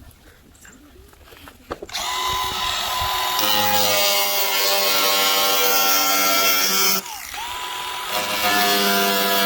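Power tool cutting through Jeep XJ steel hood sheet metal, a loud high whine with hiss starting about two seconds in. The tool's pitch and level drop briefly about seven seconds in, then it runs strongly again.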